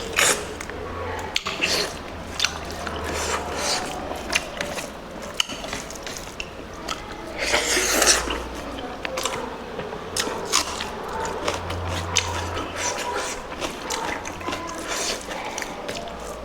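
A person chewing and biting pork curry close to the microphone, with many small wet clicks and smacks of the mouth. There is a louder, longer noisy stretch about eight seconds in.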